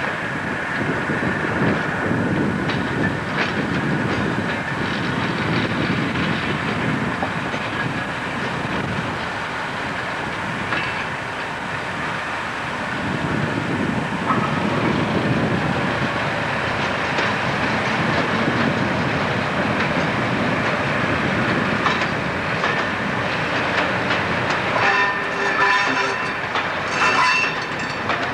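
Class 08 diesel shunter reversing a rake of parcel vans: a steady rumble of rolling stock with wheels clicking over rail joints. Near the end a sustained tone with several pitches sets in over the rumble.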